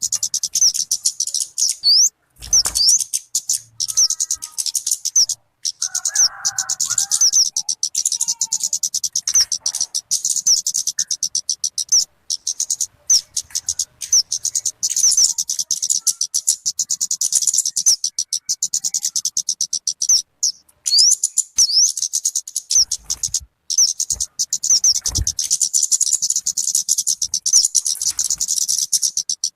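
A talokan (kemade) bird calling: a fast, unbroken run of high-pitched chirps repeated many times a second. It stops dead for a moment several times, with a faint low hum underneath.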